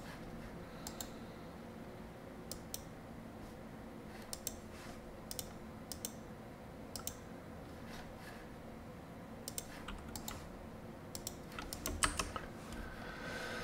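Faint, irregular clicks of a computer mouse and keyboard, bunched more closely near the end, over a low steady hum.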